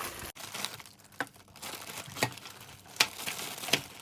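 Packaging crinkling and rustling as pump parts are unpacked from the box, with a few sharp clicks and taps.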